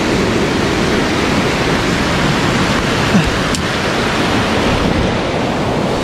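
Mountain stream rushing over rocks: a loud, steady rush of water, the stream running high.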